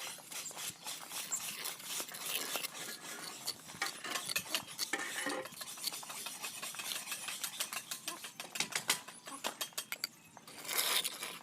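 Steel mason's trowel scraping and clinking against cement mortar and its metal pan, a dense run of quick scrapes and taps.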